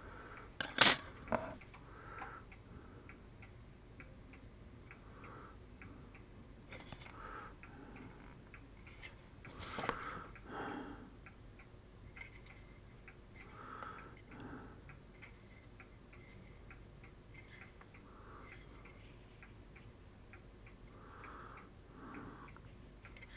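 Workbench handling noise: a sharp metallic clack about a second in as the small metal modulator box is handled, then sparse faint taps and rustles as a circuit board is held and turned.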